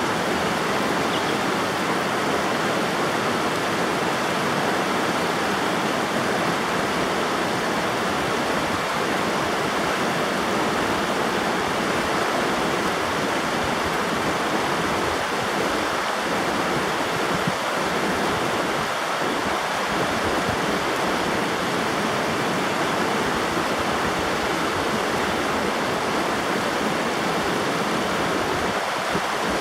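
River water rushing and splashing steadily, a continuous even roar of flowing water.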